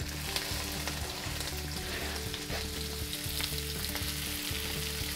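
Broccoli florets frying in olive oil in a hot pan: a steady sizzle with scattered small crackles.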